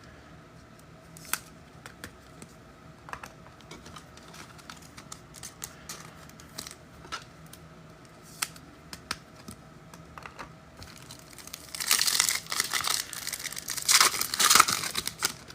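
Light scattered clicks of cards being handled, then, about twelve seconds in, a trading-card pack wrapper being torn open and crinkled loudly for a few seconds.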